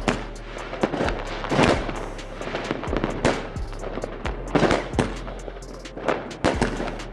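Aerial fireworks bursting: an irregular run of sharp bangs, several a second, with crackling between them.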